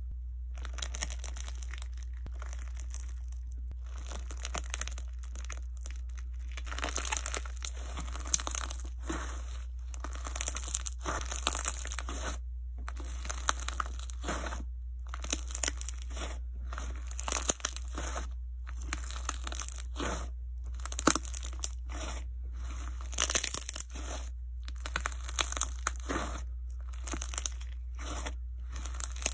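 Jelly slime with melamine-sponge peach-flesh pieces being squeezed and kneaded by hand, giving wet crackling and crunching in repeated bursts with short pauses between squeezes. A steady low hum runs underneath.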